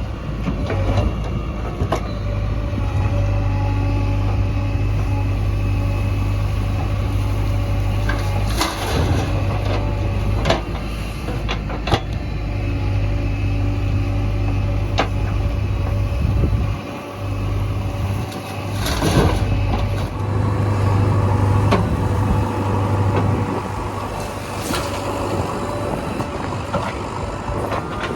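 A JCB 3DX backhoe loader's diesel engine running steadily under work, with scattered metallic clanks and knocks. The engine note drops briefly about two-thirds of the way through, then comes back.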